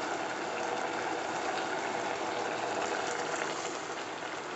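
Prawn and vegetable curry simmering in a stainless steel pot: a steady bubbling hiss with a few faint pops.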